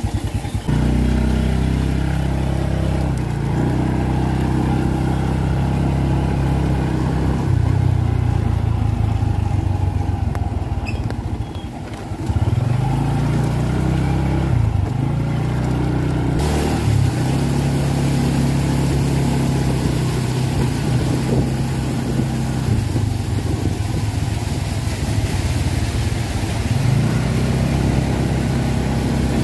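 Motorcycle engine heard from the saddle under a rain canopy, its pitch rising and falling with the throttle; it eases off and slows about twelve seconds in, then pulls away again. A steady hiss of rain and wet road runs underneath, growing louder about halfway through.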